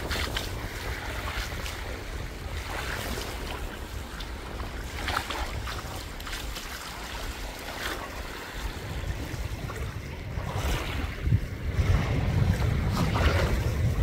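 Sea waves washing on the shore, with wind buffeting the microphone; the wind rumble gets heavier in the second half.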